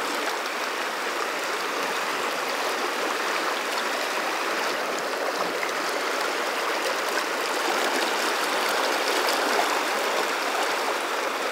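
Firehole River water rushing over a shallow, choppy riffle: a steady, even wash of flowing water.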